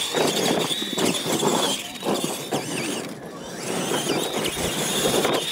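Two radio-controlled monster trucks racing on dirt: the high whine of their electric motors and gearboxes wavers in pitch with the throttle over a rough scrabbling noise. It dips briefly about three seconds in, then builds again.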